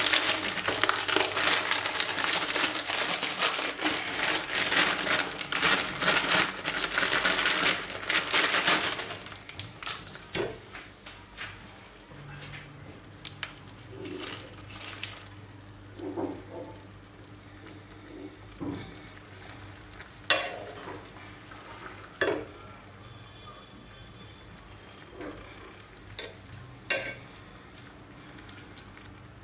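Plastic noodle packet crinkling and rustling as it is handled and torn open, loud and dense for about the first nine seconds. After that a quieter background with a few separate knocks of a metal spatula against the cooking pot.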